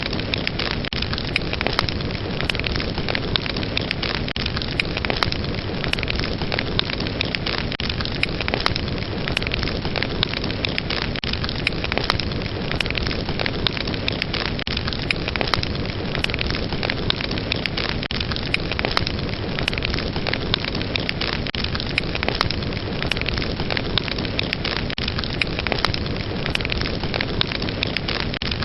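Fireplace fire burning: a steady hiss of flames with frequent sharp crackles and pops.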